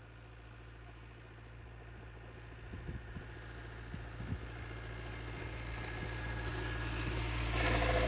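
A car engine running: a steady low drone that grows gradually louder, with louder noise coming up near the end.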